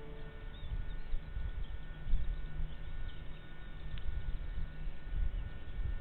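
Low, steady rumble of wind buffeting an outdoor nest-camera microphone, with faint short chirps of birds above it and a single click about four seconds in.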